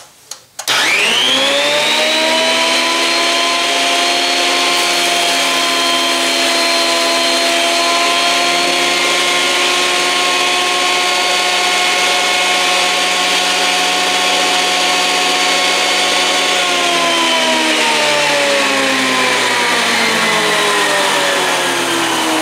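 Thickness planer switched on, its whine rising quickly as the cutter head comes up to speed. It runs steadily while a narrow board is fed through on edge. About sixteen seconds in it is switched off and the whine falls away as the cutter head spins down.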